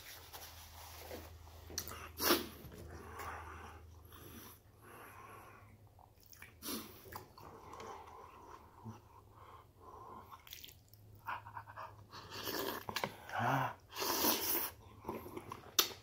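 A person eating very hot spicy beef soup: intermittent slurps of noodles and sharp breaths through the mouth against the heat, with a few clicks of a plastic spoon on the container.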